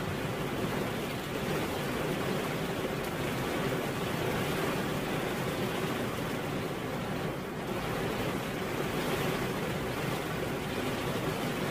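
Steady rain falling, a dense even hiss with no breaks.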